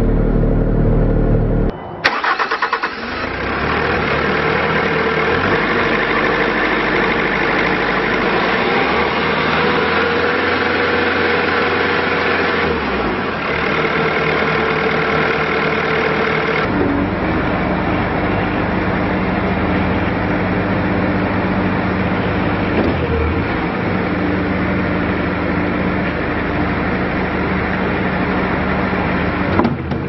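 Bobcat S530 skid steer's four-cylinder diesel engine starting about two seconds in and then running steadily. A little past halfway its speed drops to a lower, steady note.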